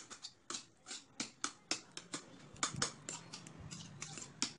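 Steel spoon clicking and scraping against a stainless steel plate as thick banana halwa is spread and pressed flat, about three or four light clicks a second.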